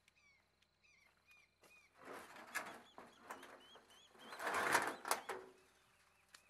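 Small birds chirping over and over in short hooked notes, while a corrugated metal sheet lid is lifted and pushed open: two noisy scraping swells, the louder one about four and a half seconds in, with a few sharp clicks at its end.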